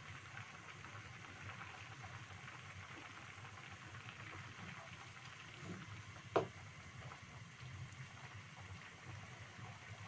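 A pan of chicken-feet and vegetable soup simmering, with a steady fine bubbling crackle. It is being stirred with a wooden spatula, which gives one sharp, ringing knock against the pan about six seconds in.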